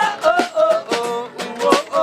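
Acoustic rock band playing: strummed acoustic guitar with sharp strokes about twice a second under a melody line that slides between notes.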